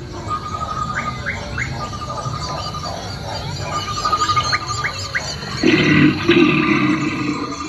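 Recorded animal sounds played over an exhibit's sound system: a bird call, a steady trill followed by three quick rising chirps, repeats three times. About two seconds before the end a louder, lower animal call comes in.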